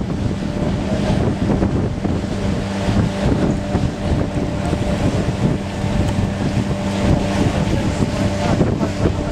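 Canal boat's engine running steadily underway, a low hum, with wind rumbling on the microphone.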